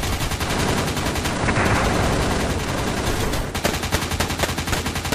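Rapid small-arms and machine-gun fire, many shots in quick succession with no real break.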